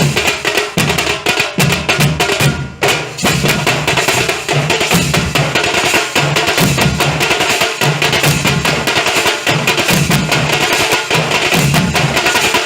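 Nasik dhol band drumming: big barrel dhols and tasha drums beating out a fast, dense rhythm, with a brief dip about two and a half seconds in.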